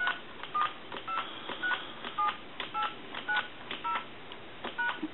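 Touch-tone (DTMF) digits dialed out from a wooden wall telephone with a rotary-style dial: about ten short two-note beeps, roughly two a second, as a number is dialed in a check that the repaired phone dials out.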